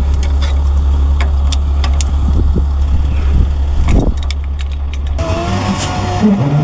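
An engine running steadily with sharp metallic clinks of tools and fittings over it. About five seconds in, the sound changes abruptly to a steady whine with several pitches.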